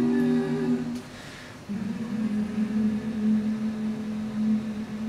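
A cappella group singing a held chord that cuts off about a second in; then a single low note is held steadily on its own.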